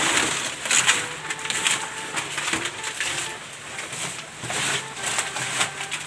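Large banana leaves rustling and crackling as they are handled and pushed into a pen, a run of papery swishes and crunches.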